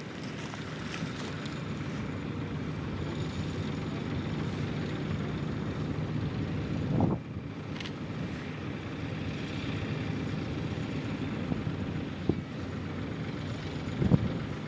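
Small farm tractor's engine running steadily under load while pulling a mouldboard plow through the soil, with a short swell and drop about halfway through and a few brief thumps near the end.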